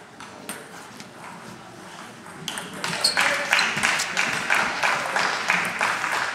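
Table tennis ball clicking off bats and table during a doubles rally: a run of sharp ticks that grows much louder about two and a half seconds in.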